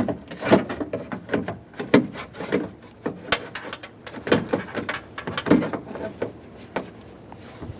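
Irregular knocks, clicks and rattles of a car door lock actuator being worked into the inner cavity of a front door, plastic and metal parts bumping against the door shell, dying away near the end.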